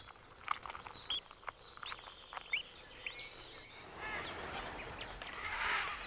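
A hatching chick peeping in short, high chirps, with a few faint taps. A soft rushing swell rises near the end.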